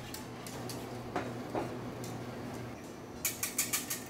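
A metal stockpot with a whisk in it being handled on a commercial gas range. There is a brief scrape about a second in, then a quick run of light metallic clicks near the end, over a steady low hum.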